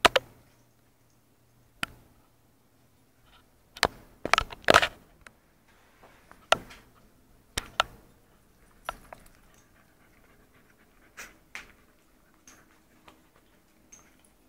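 A beagle and a chihuahua moving about and playing on a vinyl floor: scattered sharp knocks and clicks every second or two, the loudest cluster about four to five seconds in.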